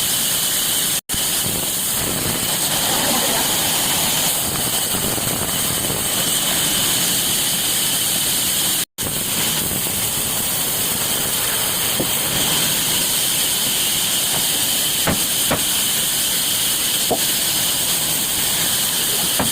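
A steady, loud hissing noise with a faint high whine, cut off abruptly for an instant twice, about a second in and about nine seconds in.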